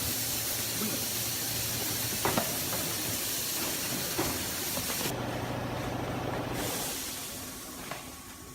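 Vertical cardboard baler's hydraulic power unit running: a steady hum under a strong hiss, with a single knock about two seconds in. The hiss drops out for about a second and a half around the five-second mark, then returns and fades near the end.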